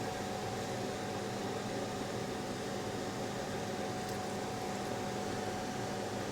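Steady whir and hiss of a running fan, with a constant low hum underneath.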